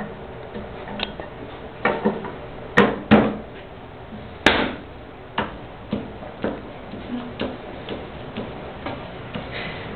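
A lump of wet clay slapped between a potter's hands and set down on the wheel head, a few loud thuds. It is followed by lighter knocks about two a second while the clay is pressed toward center on the turning wheel.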